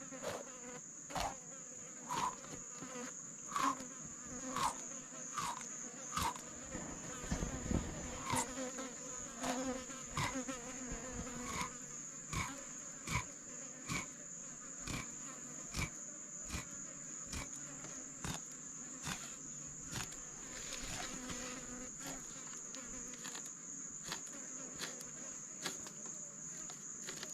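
Steady high-pitched insect chorus from cicadas or crickets, broken by short sharp clicks and scrapes about once a second as a knife cuts through a fish and its small bones.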